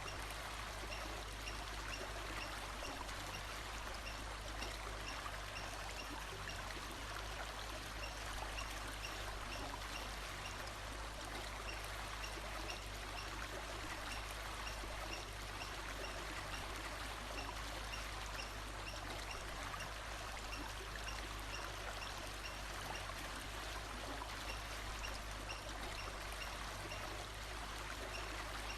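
Steady rushing of a stream's running water, with a faint high chirp repeating evenly a little more than once a second.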